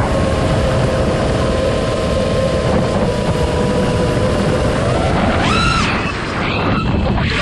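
Brushless motors of an iFlight Nazgul5 V2 5-inch FPV quadcopter whining at a steady pitch, with wind rushing over the microphone. A little over five seconds in, the motors rev up sharply in pitch, then waver and drop back.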